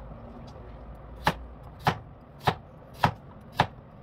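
Kitchen knife slicing a raw carrot into rounds on a plastic cutting board: five crisp cuts, each ending in a tap on the board, about one every 0.6 seconds, starting about a second in.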